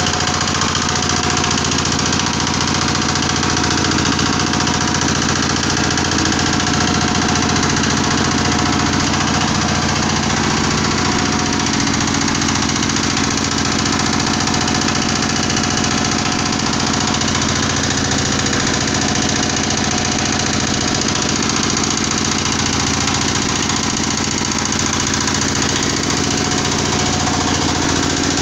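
Mini screw press for palm oil running steadily under its drive, a loud continuous mechanical running with a constant low hum.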